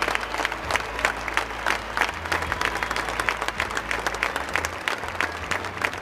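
Large stadium crowd applauding steadily, with many individual claps standing out.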